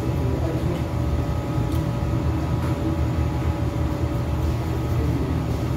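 Floor-standing air conditioner running: a steady deep hum with a few thin, steady whining tones over it.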